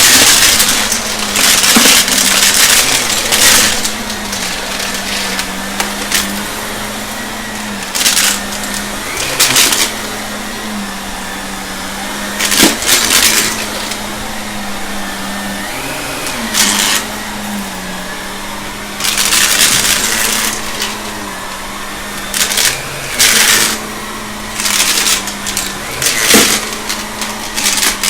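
Shark vacuum cleaner running with a steady motor hum, broken by repeated louder rushes of noise every second or two as it sucks up the test mess.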